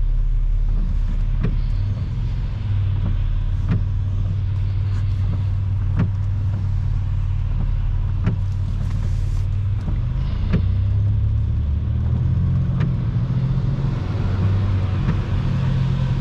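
Steady rumble of a car driving on a wet highway, heard from inside the cabin: engine and tyre noise, with faint sharp ticks about every two seconds.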